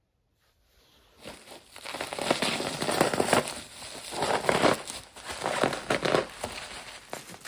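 Plastic packaging or film being handled: irregular crinkling and crackling that starts about a second in and swells and fades several times.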